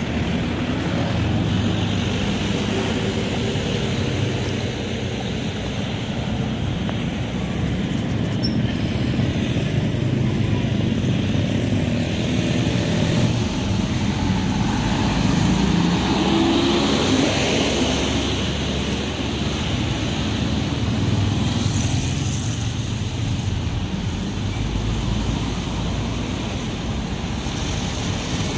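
Road traffic: motorcycles and trucks passing close by with engines running, one engine rising in pitch about halfway through.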